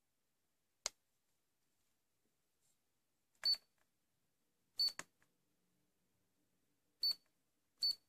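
Keypad buttons on a 1983 Sanyo AD400 landline phone being pressed one at a time, each press giving a short high beep with a click. There is a single click about a second in, then four beeps, the last two close together.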